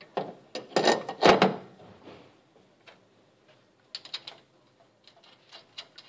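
Metal clanks and clicks as an aluminium Wilwood master cylinder and its adapter plate are fitted against the firewall mounting studs. A cluster of loud knocks comes in the first second and a half, then a few lighter clicks about four seconds in.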